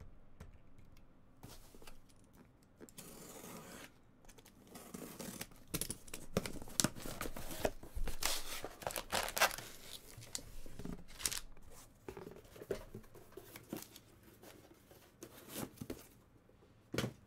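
A cardboard box being slit open with a box cutter and pulled apart, with scraping, tearing and rustling of cardboard and packaging, busiest in the middle. A sharp knock comes shortly before the end.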